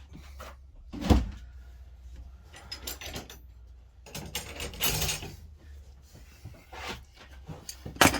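Handling noises as metal wrenches are moved about: one sharp knock about a second in, then scattered softer knocks and rustling.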